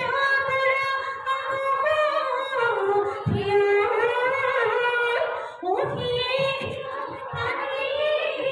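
Female voices singing a Bihu song in long, wavering held notes, phrase after phrase, with irregular low thuds underneath.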